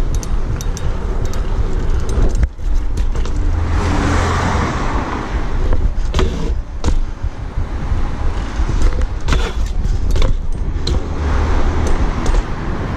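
BMX bike rolling over sidewalk and street: a steady tyre rumble with sharp clicks and rattles from bumps and cracks, while cars pass in the street traffic twice swelling louder.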